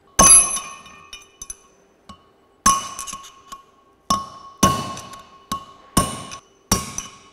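Hammer blows on a steel punch driving an old wheel bearing track out of a Land Rover hub: about seven sharp metallic strikes at uneven intervals, each ringing briefly.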